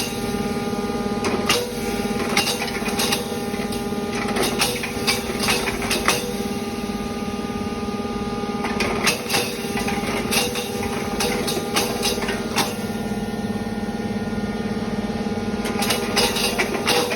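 Motor-driven khali and kapas grinder running with a steady hum. Irregular sharp clicks and knocks sound over it.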